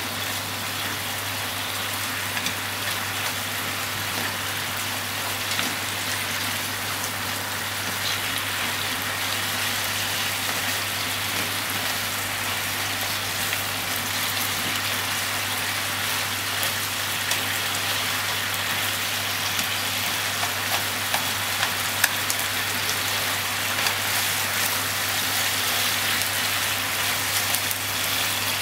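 Sliced pork and onion frying in oil in a frying pan, a steady sizzling hiss that grows slightly louder, with small sharp pops and clicks more frequent in the second half.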